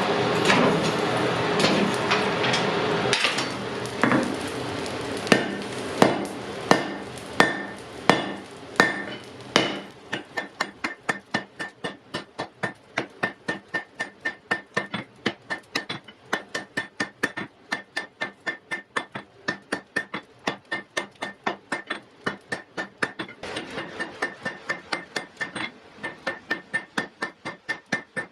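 Hammer blows on hot iron at the anvil while forging wrought iron: after a few seconds of dense clatter, heavy separate strikes come about one every 0.7 s, then about ten seconds in they turn into a fast, even run of lighter blows, about three a second, with a ringing note from the anvil.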